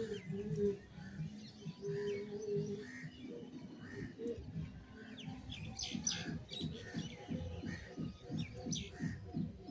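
Small birds chirping over background music, which takes on a quick, even beat about halfway through.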